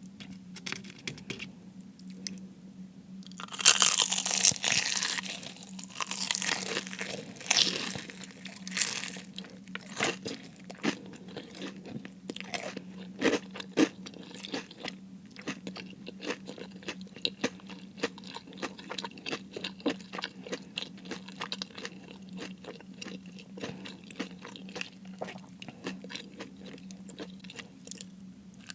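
Close-miked biting and chewing of crispy fried food. A loud crunching bite comes about three and a half seconds in, followed by further crunchy bites, then steady chewing with many small crackles.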